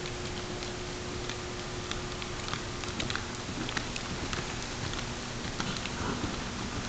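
Horse cantering on indoor arena footing, its hoofbeats coming as short uneven knocks that grow thicker as it nears and takes a jump, over a steady hiss and a faint low hum.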